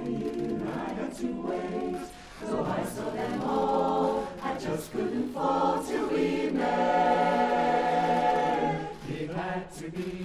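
Mixed-voice barbershop chorus singing a cappella in close harmony, with a brief break about two seconds in and a long held chord in the second half.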